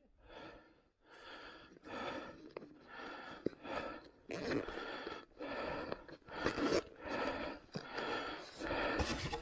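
A man panting hard and fast close to the microphone, about a dozen ragged breaths in and out, badly out of breath from exertion.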